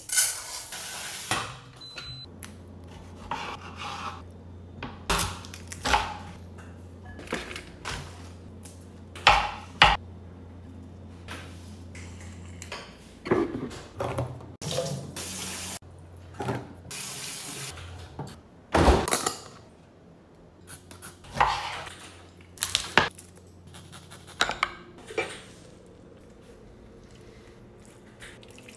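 A run of kitchen food-prep sounds: dry rice grains rustling as a hand scoops into a glass jar, a handheld can opener working around a can, and repeated clinks and clatters of utensils and dishes. A steady low hum sits under the first part and stops partway through.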